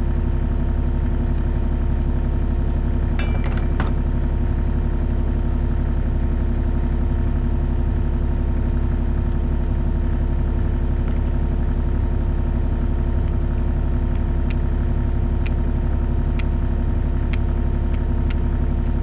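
Bobcat 325 mini excavator's diesel engine idling steadily, with a few light metallic clinks of a wrench on the bucket linkage as a grease fitting is tightened.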